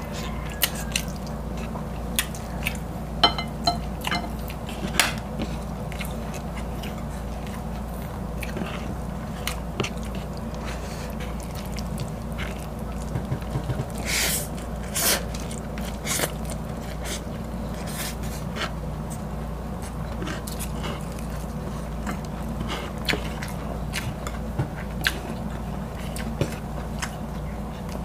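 Close-miked eating sounds: chewing and slurping of fried egg noodles and breaded chicken fillet, with many short sharp mouth smacks and crunches, a few louder bursts midway, over a steady low hum.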